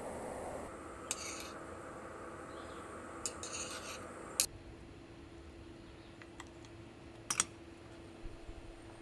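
Camp utensils being handled: a few short scrapes and light clinks, the sharpest one about four and a half seconds in, over a steady faint hum.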